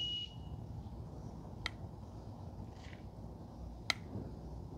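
Honda Rebel 1100 front fork being pumped in freshly poured fork oil to bleed the air out: faint working sounds with two sharp clicks about two seconds apart. A thin high tone stops about half a second in.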